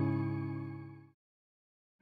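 Instrumental background music fading out over about the first second, then dead silence until the end.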